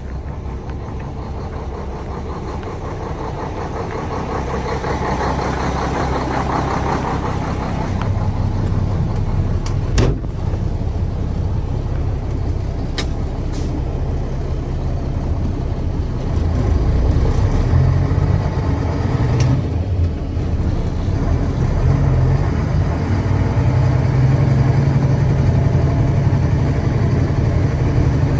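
Heavy diesel engine running steadily and getting gradually louder, with a sharp knock about ten seconds in.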